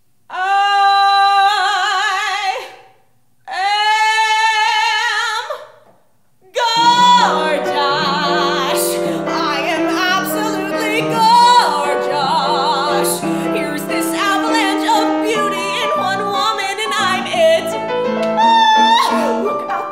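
A woman singing a musical-theatre song in a trained, operatic-style voice: first two long held phrases with vibrato, sung alone with short pauses between them. From about seven seconds in, a piano accompaniment joins as she sings on.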